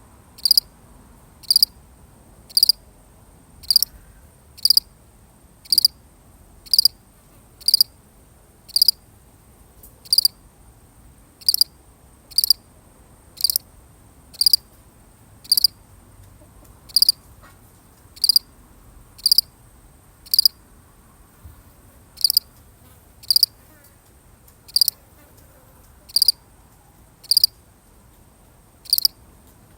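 A lone cricket chirping: short, high-pitched chirps at a steady pace of about one a second, with one skipped beat about two-thirds of the way through.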